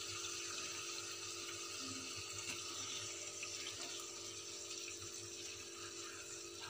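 Chicken pieces frying in oil in an aluminium kadai: a faint, steady sizzle with a low steady hum beneath.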